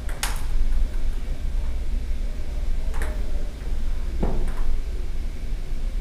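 Table tennis rally: a few sharp clicks of the ball striking paddles and the table, one about a quarter second in, then another near the three-second mark and a heavier knock about a second later, over a low steady rumble.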